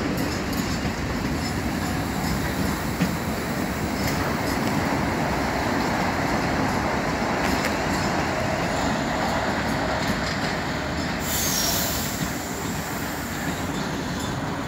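Container freight train's wagons rolling past with a steady rumble of wheels on rail. About eleven seconds in, a high-pitched wheel squeal rises over it for about two seconds.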